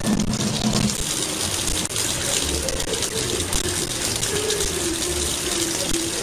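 Kitchen faucet running, a steady stream of water falling into a stainless-steel sink. At first it breaks and splashes over a cat's head.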